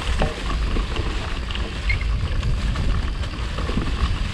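Mountain bike tyres rolling downhill over dry fallen leaves: a steady crackling rustle over a low rumble, with small scattered clicks and rattles.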